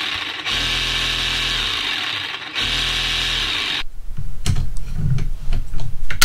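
TACKLIFE 20V MAX cordless reciprocating saw running unloaded with the trigger held, dipping briefly twice before it stops about four seconds in. After that come sharp plastic clicks and knocks as the saw's shoe is handled.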